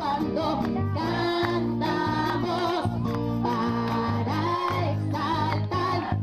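A song sung with instrumental accompaniment: a melodic voice over held low notes that change about once a second.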